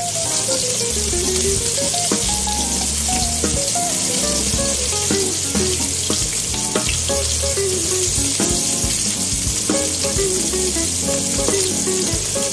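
Raw pork chops frying in hot cooking oil in a nonstick pan, a steady loud sizzle, over background guitar music.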